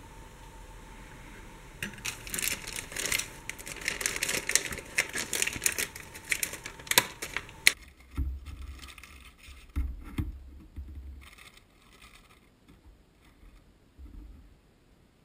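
Clear plastic packaging bag crinkling loudly as it is handled for about six seconds, then quieter rustling with a few dull thumps against the table.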